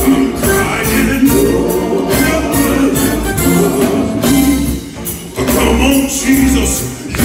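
Live gospel group singing with a band, over a steady drum beat and bass line.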